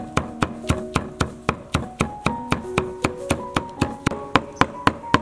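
A cleaver chopping soaked dried red peppers on a chopping board in steady, quick strokes at about four a second, mincing them toward a paste. Light background music plays under the chops.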